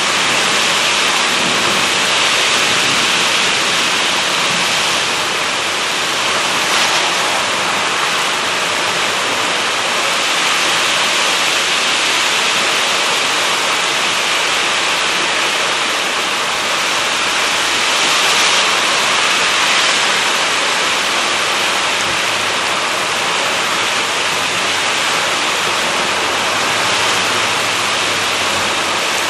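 Heavy rain pouring down in a gusty storm: a loud, steady hiss that swells slightly now and then.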